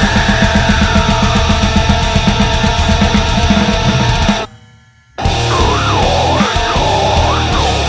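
Heavy metal band recording: distorted guitars over a fast, even drum beat. The music breaks off into a short near-silent gap a little past halfway, then the full band comes back in.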